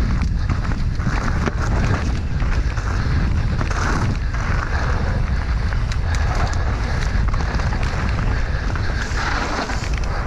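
Wind buffeting the microphone of a helmet-mounted camera during a mountain-bike enduro descent: a heavy low rumble, with frequent short knocks and rattles from the bike on rough trail.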